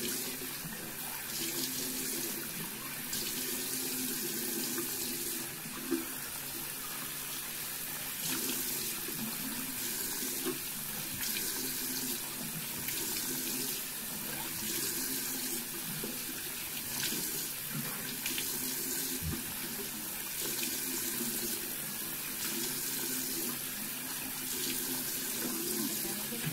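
Bathroom sink tap running steadily while water is scooped and splashed onto the face by hand to rinse off soap, with irregular splashes over the flow.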